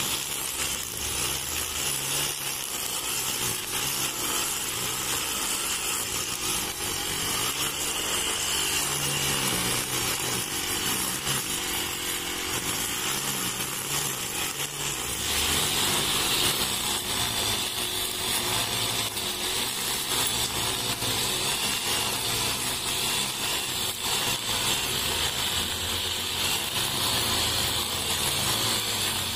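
Backpack brush cutter's small engine running at high speed, its nylon trimmer line whipping through and cutting grass. The steady whine steps up slightly about halfway through.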